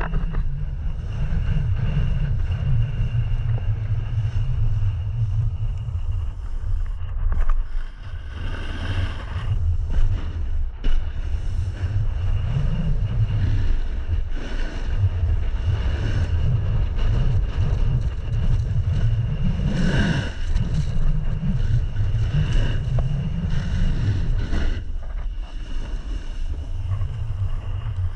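Wind buffeting a camera microphone carried by a skier going downhill: a loud, low rumble that swells and eases irregularly.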